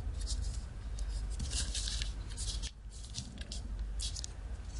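A square of origami paper being folded and creased by hand: several short, scratchy paper rustles as fingers press and run along the folds.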